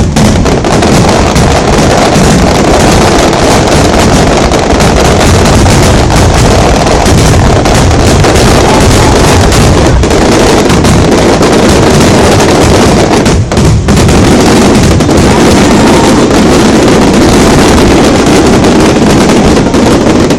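Starmine fireworks barrage: so many shells bursting at once that the booms and crackles run together into one continuous, very loud din, with a brief slackening about thirteen seconds in.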